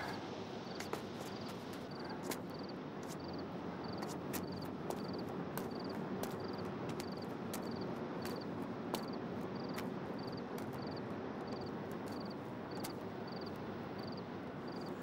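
Night ambience: a cricket chirping at a steady rhythm, a little under two high chirps a second, over a steady background hiss, with scattered sharp ticks.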